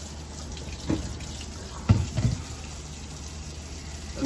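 Skillet of pasta and sauce simmering with a steady watery bubbling, with a few low knocks of cookware being handled about one and two seconds in, the loudest near two seconds.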